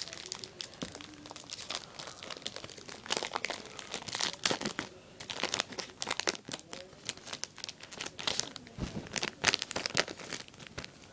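Plastic foil wrapper of a Yu-Gi-Oh booster pack being torn open and handled, crinkling in irregular crackles throughout.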